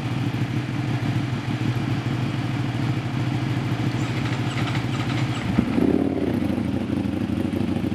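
A Ducati Panigale 899's Superquadro L-twin idling steadily. About five and a half seconds in, a Ducati Panigale V4's Desmosedici Stradale V4 engine is started and settles into a higher-pitched idle alongside it.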